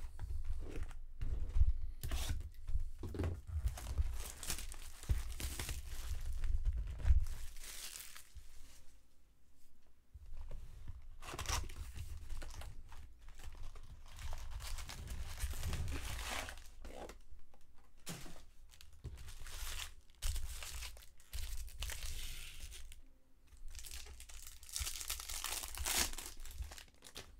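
Trading card pack wrappers being torn open and crinkled in repeated bursts, with low handling thumps in the first several seconds.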